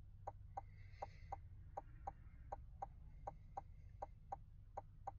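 Chevy Silverado hazard-light flasher ticking faintly and steadily in tick-tock pairs, a pair about every three-quarters of a second.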